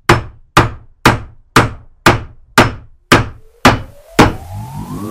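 Edited-in hammer-blow sound effects: nine heavy knocks about half a second apart, one for each letter of a logo appearing, the last one the loudest. Just after it, a rising electronic sweep begins.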